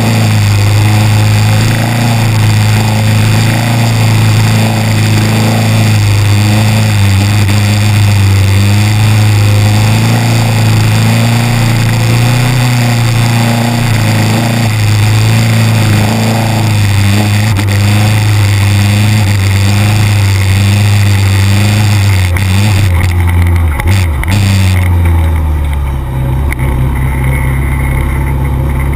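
600 cc racing motorcycle's engine running hard at a steady high note, with a dense rushing noise over it. About three-quarters of the way in the note falls in pitch and the rushing noise drops away as the bike slows, then it settles at a lower steady note.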